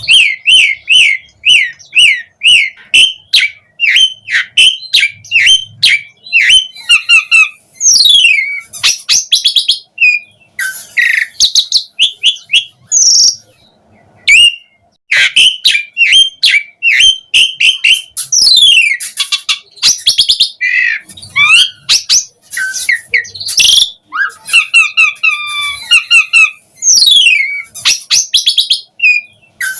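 Asian pied starling singing a loud, fast, varied song. It is a string of quick chirps, long falling whistles, sharp clicks and harsh rasps, broken by one short pause partway through.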